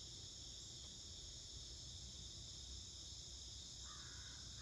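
Faint, steady, high-pitched chorus of insects, with a crow cawing near the end.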